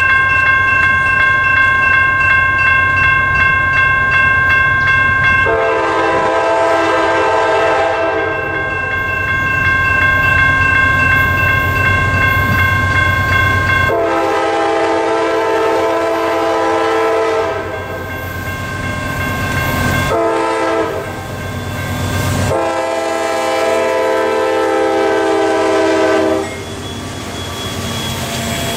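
Freight locomotive air horn blowing the grade-crossing signal: two long blasts, a short one and a final long one. Under it ring the crossing's General Signals electronic bells, and the train's rumble grows as the CSX AC44CW-led freight reaches the crossing near the end.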